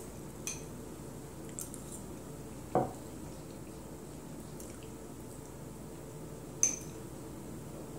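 A metal fork clinking and scraping against a small ceramic bowl as mac and cheese is scooped out: a few separate clinks, the loudest near the end.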